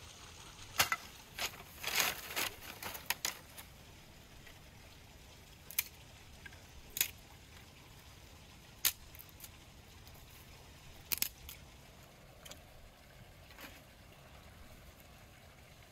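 Dry twigs and sticks snapping and clattering as kindling is broken up by hand and dropped into a clay tandoor: a quick run of sharp cracks in the first few seconds, then single cracks every second or two.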